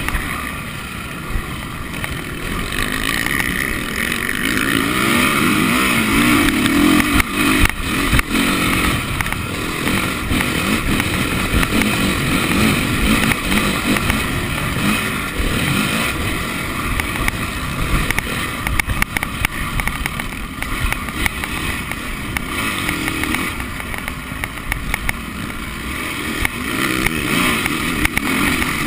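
Honda motocross bike's engine under hard riding, heard from on the bike itself, revving up and falling off again and again. A few sharp knocks about eight seconds in.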